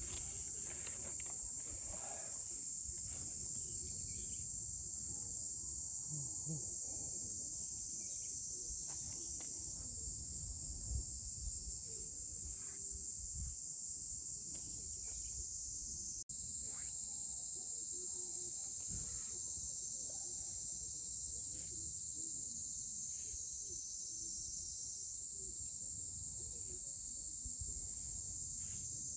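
A steady, high, continuous chorus of insects, such as crickets, with faint low rumble and occasional small knocks underneath.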